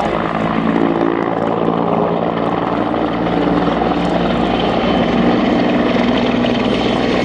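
Sikorsky CH-53 heavy-lift helicopter flying a low display pass: loud, steady rotor and turbine noise with a low humming tone, getting slightly louder after about three seconds.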